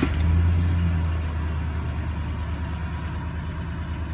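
Lincoln Navigator 5.4 L DOHC 32-valve V8 catching on a cold start and settling into a fast cold idle. It is loudest in the first second. It runs with a slight sustained rattle on startup, which the owner puts down to the timing chain and a tired tensioner.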